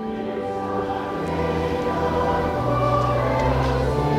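Background choral music: long held, sustained chords over low bass notes.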